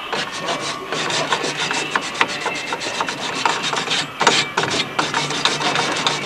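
Fine abrasive paper being rubbed by hand over the contact tips of a tram's underfloor electrical switchgear, in quick repeated scraping strokes, cleaning up the burnt contacts.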